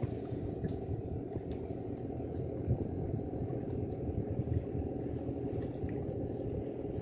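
Steady low rumble of a running engine, with a few faint clicks from a cast net being handled.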